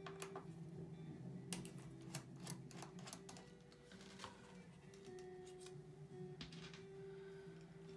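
Faint background music with a run of small sharp clicks and taps from a precision screwdriver working screws inside an opened Mac mini A1347. The clicks are thickest from about one and a half to three and a half seconds in, with a few more later.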